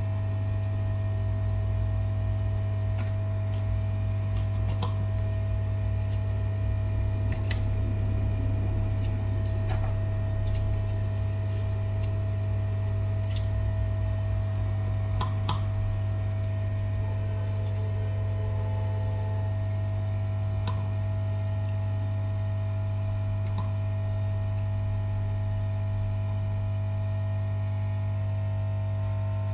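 Steady electrical hum, with a short high chirp repeating about every four seconds and a few faint light clicks.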